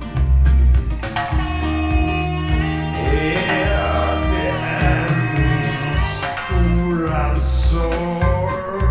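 Recorded music with guitar and a heavy bass line, played through a Mark Audio Alpair full-range driver in a back-loaded horn speaker cabinet.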